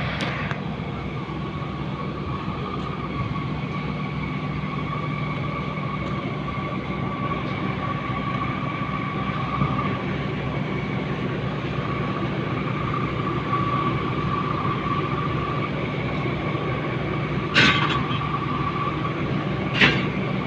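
Steady mechanical hum of machinery running in a steel fabrication yard, with a wavering high tone over it. Two sharp knocks about two seconds apart near the end.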